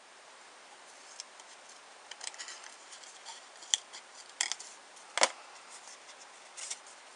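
Small pointed craft scissors snipping the end of a paper strip to cut a flag notch: a series of short, sharp snips, the loudest a little past halfway.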